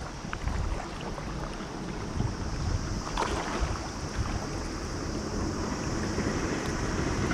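Shallow river current rushing past the wading angler, with wind buffeting the microphone; a brief knock about three seconds in.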